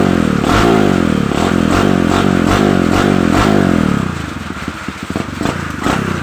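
Kawasaki KLX150's single-cylinder four-stroke engine, fitted with a reground performance camshaft, held at raised revs for about four seconds and then dropping back to an uneven idle with regular sharp pops.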